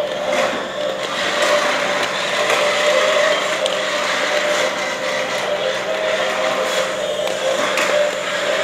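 Small electric gear motors of remote-control toy dinosaurs whirring steadily, with a constant whine running through the sound.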